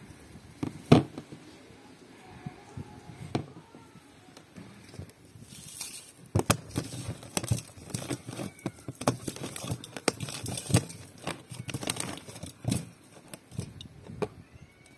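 Irregular crinkling and rustling with many small sharp knocks and clicks, sparse at first and much busier from about six seconds in; a bird calls faintly.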